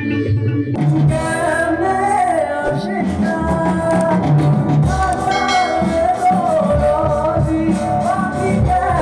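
Background music with a singing voice; the music fills out, brighter in the high end, about a second in.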